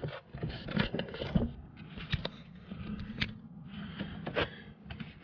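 Handling noises as a plastic motor-oil jug and funnel are handled over the engine: scattered clicks, knocks and scrapes, with a steady low hum beneath.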